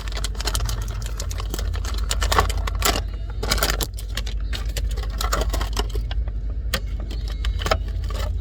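Plastic toy packaging being handled and torn open, making rapid crinkles and clicks, over a steady low rumble.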